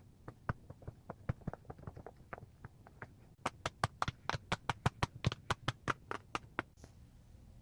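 A rapid, uneven series of sharp taps, about five a second. They grow louder about halfway through and stop shortly before the end.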